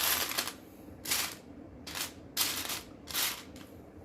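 Loose plastic Lego pieces rattling and clattering as a hand rummages through a plastic container, in about five separate bursts.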